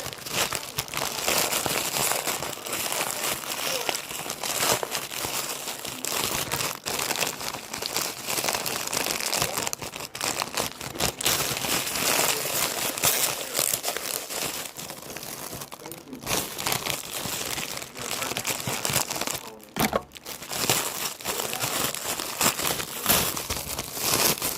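Packaging of a Labubu toy being crinkled and torn open by hand: a continuous rustling with many sharp crackles, pausing briefly a couple of times.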